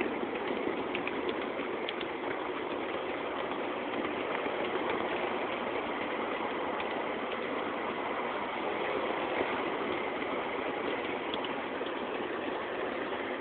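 Steady running noise of a small ride-on miniature railway locomotive and its wheels rolling on 7.5-inch gauge track, heard from aboard, with a few faint ticks.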